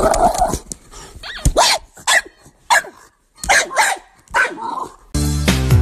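A dog barking in a series of short, sharp barks with pauses between them. Music starts abruptly about five seconds in.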